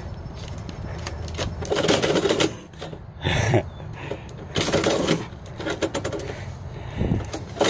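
A metal door mail slot flap clacks repeatedly and paper envelopes rustle as letters are pushed into the slot and shoved back out from inside.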